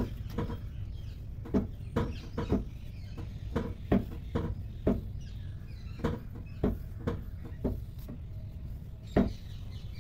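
Car scissor jack being wound up with its handle rod, lifting the car: irregular short squeaky creaks and clicks from the jack's screw and arms over a low rumble.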